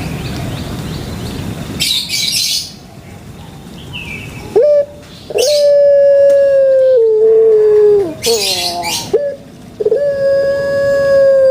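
Puter pelung dove (Streptopelia risoria) giving its long drawn-out song: a loud held note that steps down to a lower pitch before breaking off, sung twice. Two short bursts of high, rough noise cut in about two seconds and eight seconds in.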